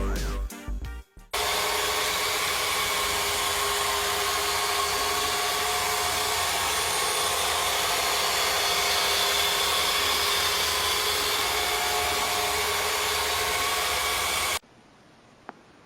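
Steady rushing noise like a small motor-driven blower. It starts about a second in and cuts off abruptly near the end.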